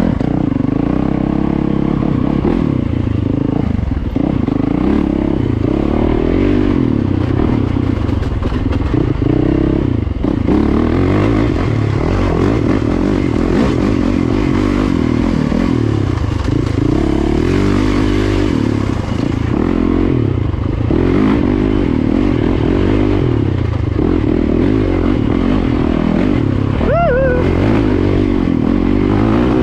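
Yamaha YZ450FX dirt bike's 450 cc four-stroke single-cylinder engine under way on a rough trail, its revs rising and falling continually as the throttle is worked.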